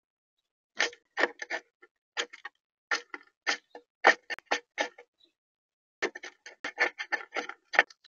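European starling pecking at seed in a feeder tray: sharp, irregular taps and clicks of its bill striking the seeds, in quick clusters, with a short pause about five seconds in.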